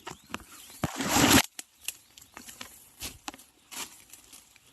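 Scattered crackles and snaps of dry leaves and twigs as a person moves through bamboo undergrowth, with one louder rustling crash about a second in.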